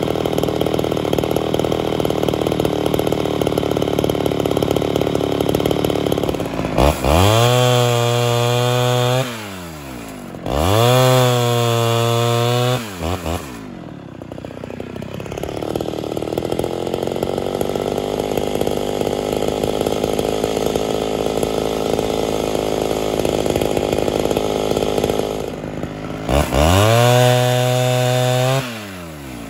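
Ported Homelite Super XL Auto two-stroke chainsaw bucking firewood logs. It runs loaded in a cut for about six seconds, then revs high and clean twice with a drop in between. A second long cut of about ten seconds follows, and another high rev near the end.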